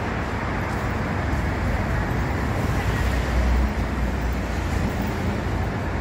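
Steady city street traffic noise, with a low rumble that swells briefly about halfway through as a vehicle passes.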